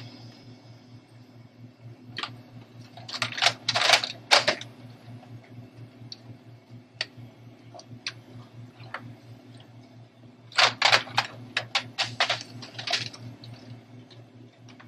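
Two clusters of quick clicks and rustles from objects being handled up close, a few seconds in and again past the middle, over a steady low electrical hum.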